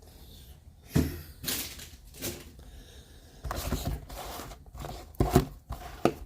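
Cardboard boxes of hockey cards being handled: a string of knocks and taps as they are set down, with cardboard sliding and rustling in between, the loudest knocks a little past the middle.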